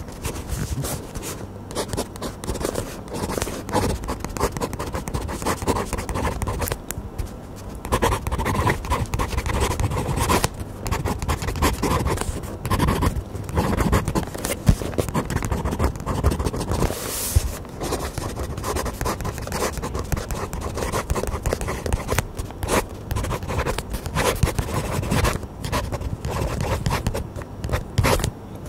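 Fountain pen nib scratching and scraping across paper in a steady run of handwriting strokes, picked up by close microphones and heavily amplified, so every stroke comes through loud and rough.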